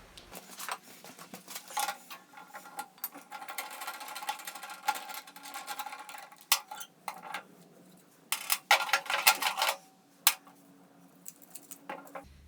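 Small metallic clicks and rattles from handling the wire spool and feed mechanism inside a MIG welder, with a steady mechanical whir for a few seconds in the first half and a cluster of sharper clicks later on.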